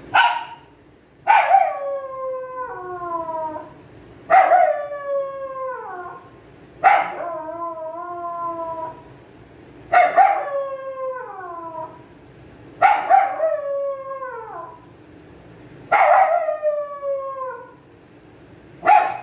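Pomeranian dog howling, head raised: a run of howls about every three seconds, each starting high and sliding down in pitch.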